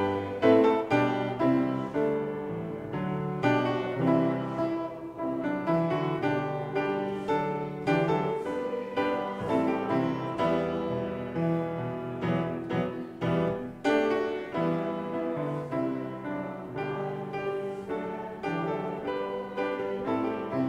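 Piano playing a hymn tune, with chords moving at a steady pace.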